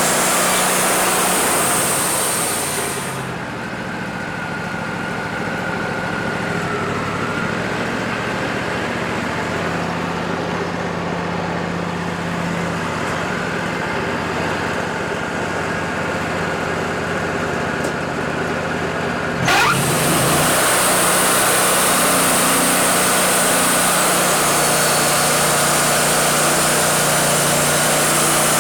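Wood-Mizer LT40 band sawmill running: its engine runs steadily throughout. About three seconds in, the high hiss of the running blade drops away, leaving the engine alone. About twenty seconds in, a quick rising whine and a brief loud knock mark the blade starting again, and blade and engine then run steady.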